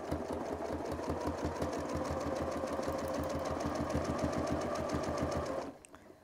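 Domestic sewing machine running at a fast, steady speed for free-motion quilting: a rapid, even patter of stitches over a motor hum. It stops abruptly shortly before the end.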